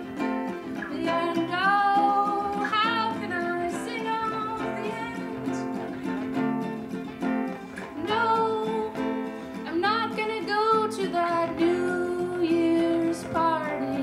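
Live acoustic music: a classical-style acoustic guitar and a ukulele played together, with a voice singing a wavering melody over them.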